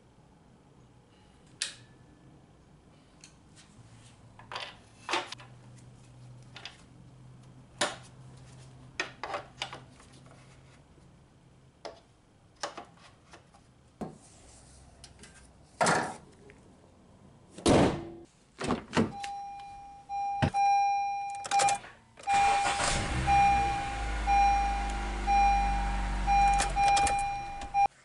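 Clicks and knocks of parts being refitted on top of a Honda Civic's four-cylinder engine, with a couple of heavier thunks, then a steady pulsing warning chime from the car and the engine starting and running with a low rumble after fresh spark plugs.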